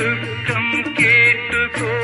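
Live stage band playing an instrumental passage of a Malayalam film song: a keyboard melody over a bass line, with a steady beat ticking about four times a second.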